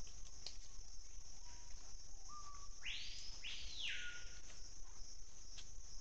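A bird call about halfway through: a short flat note, then a swift sweep up to a high pitch and back down, lasting about a second. A steady high hiss runs underneath.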